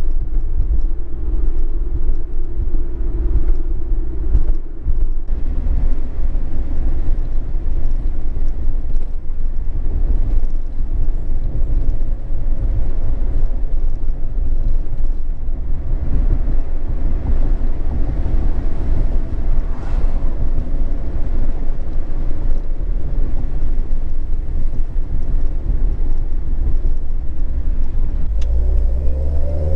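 The 2.0-litre SkyActiv four-cylinder of an ND Mazda MX-5 Miata, fitted with a Skunk2 Alpha 4-1 header and Remark cat-back exhaust, driving on the road and heard from inside the cabin as a steady low exhaust drone. The engine note dips briefly about five seconds in, and the revs rise near the end.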